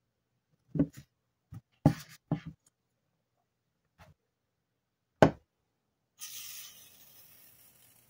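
Hands handling a phone, a steel ruler and a small aluminium cup on a desk: a series of sharp knocks and clunks, the loudest about five seconds in, then a soft hiss lasting about two seconds that fades away.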